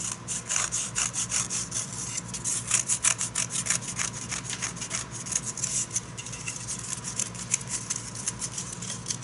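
Close-up scratchy rubbing, a fast run of short rasping strokes, several a second, like light sawing or filing.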